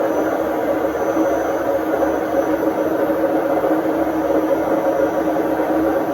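Indesit IWD61450 washing machine running through its service-mode test cycle: a steady, even mechanical hum that does not pause or change.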